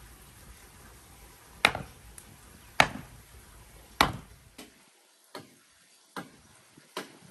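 Campfire popping: three loud, sharp cracks about a second apart, then fainter pops that keep coming roughly once a second.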